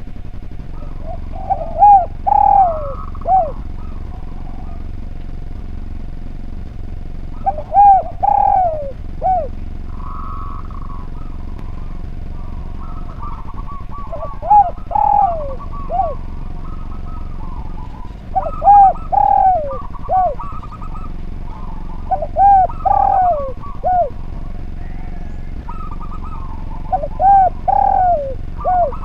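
Spotted dove (derkuku) cooing: six phrases of three or four falling coos, one about every five to six seconds. Fainter chirps from other birds and a steady hum lie underneath.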